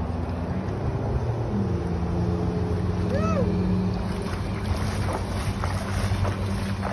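A motor's steady drone, its pitch stepping up slightly about a second and a half in, over wind on the microphone. A short rising-and-falling call sounds once near the middle.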